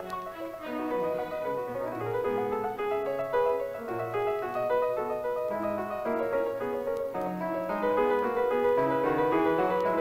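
Background film music, a piano playing a steady stream of notes that grows a little louder near the end.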